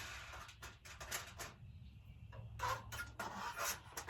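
Hands working a nut off a bolt on a metal raised-bed panel: a string of short, irregular clicks and scrapes of the hardware and metal parts, over a low steady rumble.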